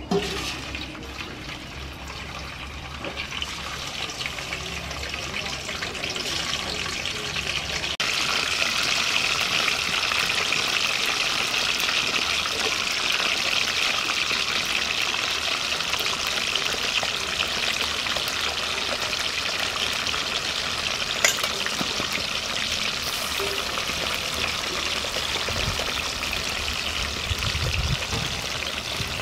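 Small fish deep-frying in hot oil in a wok: a steady, dense sizzle of bubbling oil, quieter at first and much louder after about eight seconds, with one sharp pop about two-thirds of the way through.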